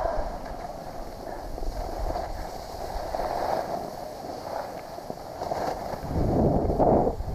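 Skis sliding and scraping over packed snow, with wind rushing on the microphone; the noise swells louder about six seconds in.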